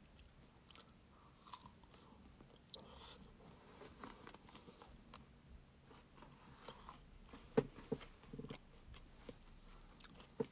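Faint biting and chewing on a Super Cone ice cream cone, with crunching from its chocolate topping, heard as scattered soft crackles. A few sharper clicks come near the end.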